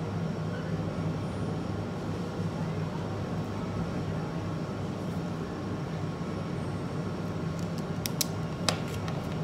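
Coffee shop ambience: a steady low hum with faint background chatter. A few sharp clicks sound about eight seconds in.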